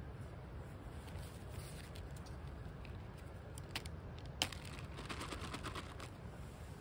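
Foil food pouch being torn open and its crinkly mouth pulled apart: a sharp snap about four seconds in, then a second and a half of dense crinkling, over a low steady rumble.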